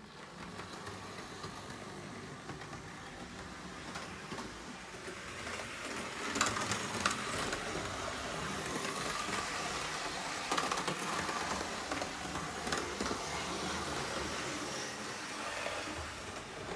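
Hornby RailRoad Class 59 OO-gauge model locomotive running on DC: a steady whirr from its small three-pole motor and gears, with wheels running over the track, growing louder over the first few seconds. There are a few sharp clicks partway through. The model is being run in after a long time unused.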